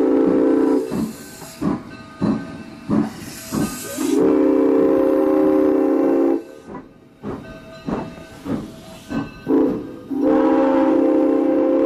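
Granite Rock Co. 10's steam whistle blowing a long blast, a short one and another long one, the tail of the long-long-short-long grade-crossing signal, as the excursion train rolls past. Between the blasts there is a regular beat of short knocks, about two a second.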